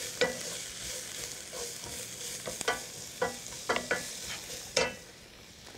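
Diced onion and garlic sizzling in oil in an enamelled cast iron pot, stirred with a wooden spatula that knocks and scrapes against the pot several times.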